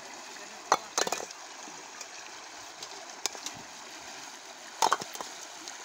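Floodwater rushing steadily through a breach in a brick village road, with a few short sharp knocks or splashes about a second in and again near the end.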